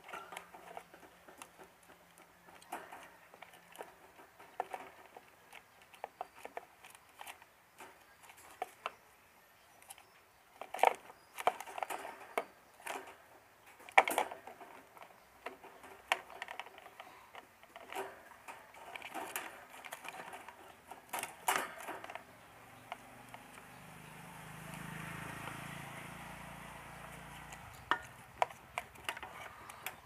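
Hard plastic parts of a stand fan's rotary speed switch and its housing being handled: irregular clicks, taps and knocks, the loudest twice in the first half and a quick run of them a little later. A low steady noise swells and fades in the second half.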